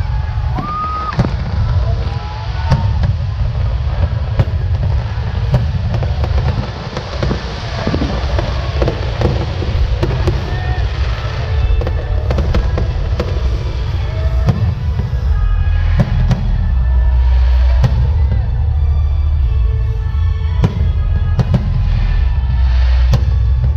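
Aerial fireworks display: shells bursting in quick succession, many sharp bangs over a continuous low rumble.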